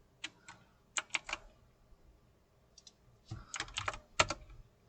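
Computer keyboard typing: two short bursts of key clicks, the first near the start and the second a little past the middle.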